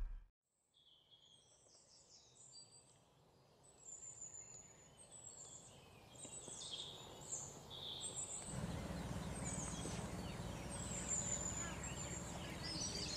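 Small birds chirping in short, scattered high calls. From about eight seconds in, a steady low background rumble of ambient noise rises under them.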